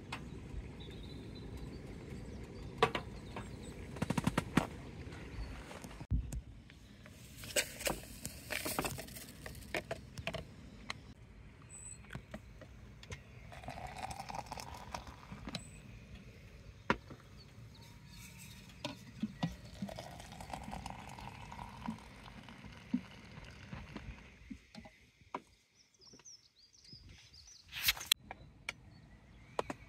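Small handling sounds of mugs, lids, a flask and a hot-chocolate sachet: scattered clicks, taps and rustles over low wind rumble on the microphone. Twice in the middle comes a short rising sound.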